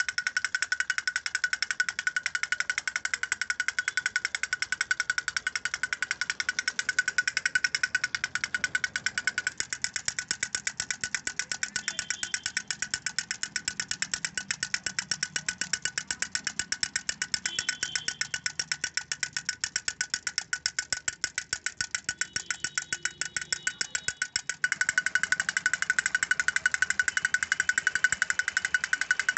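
Wind-up clockwork drummer toy beating its small plastic drum, the sticks striking in a rapid, even rattle of taps driven by the spring motor. It gets louder about 25 seconds in.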